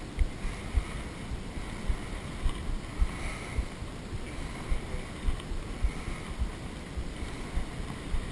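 Wind rumbling on the microphone, with irregular low thumps about once or twice a second.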